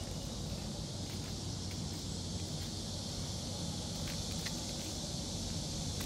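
Steady outdoor background in a park: a constant high-pitched hiss over a low hum, with a few faint ticks about four seconds in.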